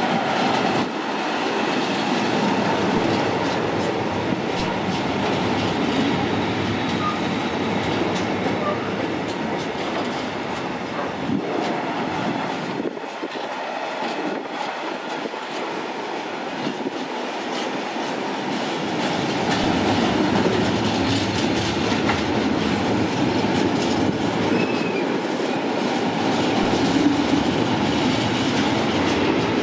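Freight train of covered steel-coil and curtain-sided wagons rolling past at a platform, a steady rumble and clatter of steel wheels on the rails.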